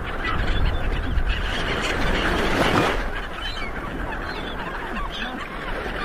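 A flock of gulls calling: many short, overlapping rising-and-falling calls, over a steady low rush of wind.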